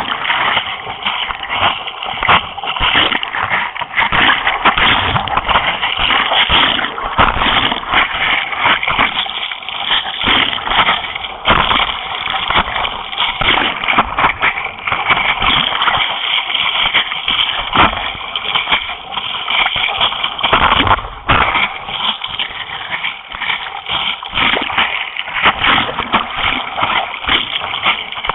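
Water splashing and rushing against a surf race board as the paddler strokes through the surf, heard close up from a camera on the board's nose: a continuous wash broken by frequent irregular splashes.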